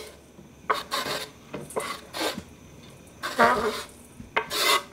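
A knife blade scraping chopped cacao butter off a wooden cutting board into a stainless steel pot, in about six short scrapes. The last two scrapes are the loudest and longest.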